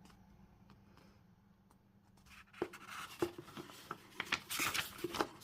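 Paper rustling with light handling knocks as a folded instruction leaflet is opened and leafed through. It starts about two seconds in and gets busier toward the end.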